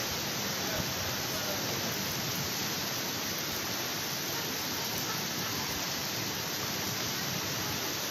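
Heavy rain falling steadily during a thunderstorm: a constant, even hiss with no thunder clap.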